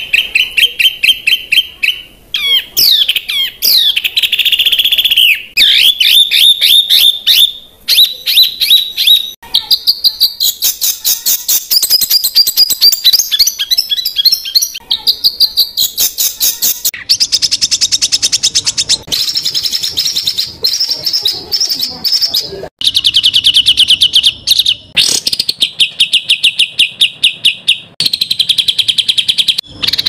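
Songbird recordings spliced together: fast, dense trills and chattering runs of rapidly repeated sharp notes, each phrase cut off abruptly before the next begins.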